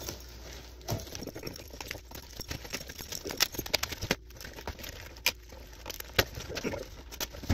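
A cardboard shipping box being opened by hand: packing tape slit and pulled, stiff cardboard flaps scraping, crackling and knocking in many irregular clicks, with keys on a lanyard jingling.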